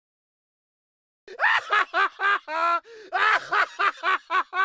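After about a second of silence, a person laughs: a rapid string of short, high-pitched laughs, about three or four a second.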